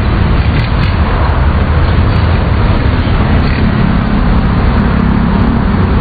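Steady, loud road traffic: a constant rumble of passing cars and buses.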